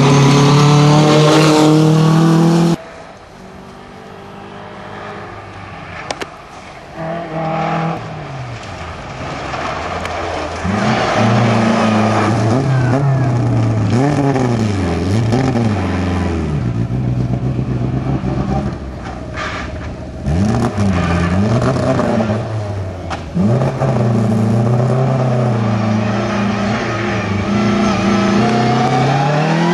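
Rally car engines running hard on a gravel stage, including an Opel Manta. A high, steady engine note stops abruptly about three seconds in; after a quieter stretch the revs swing up and down again and again as the car slides through the corners.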